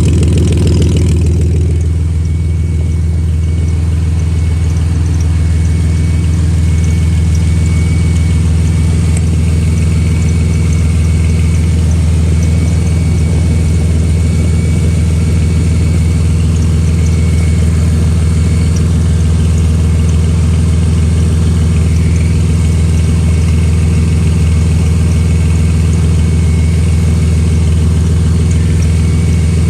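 Vehicle engine idling steadily with an exhaust leak. It settles down from a slightly higher, busier note in the first couple of seconds.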